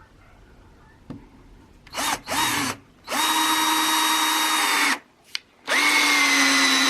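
Single-speed Black & Decker cordless drill driving a 3-inch screw into a 2x4 without a pilot hole. It gives two short blips of the trigger, then runs steadily for about two seconds, pauses briefly with a click, and runs steadily again.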